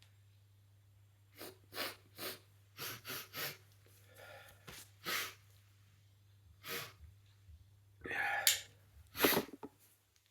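A person in a sneezing fit brought on by snuffing Chhinkni sneezing powder: a run of short, sharp breaths and sniffs, then two loud sneezes near the end.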